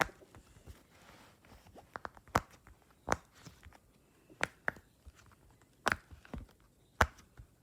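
Silicone pop-it fidget toy being pressed, its bubbles popping one by one in sharp, separate clicks about a second apart, with fainter clicks between.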